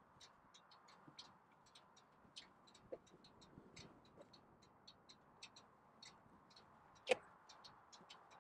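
Near silence, with faint, irregular clicking several times a second and one sharper click about seven seconds in.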